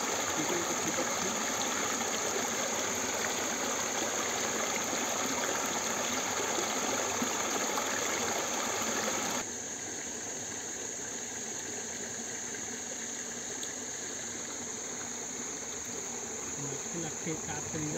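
Night insects chirring steadily in a high, even drone over a steady hiss. The whole sound drops abruptly to a quieter level about nine seconds in.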